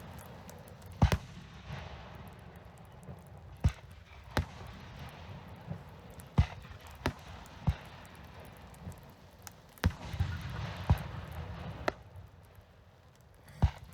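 Fireworks display: about ten sharp bangs of aerial shells bursting at irregular intervals, with a low rolling rumble carrying on between them.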